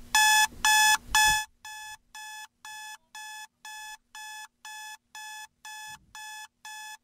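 Electronic alarm beeping, about two high-pitched beeps a second. The beeps are loud for the first second and a half, then go on much quieter. It is a morning wake-up alarm.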